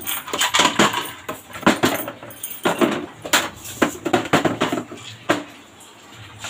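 Plastic bottles and kitchen containers knocking and clattering as they are handled and set into a plastic tub. A quick series of sharp knocks that tails off near the end.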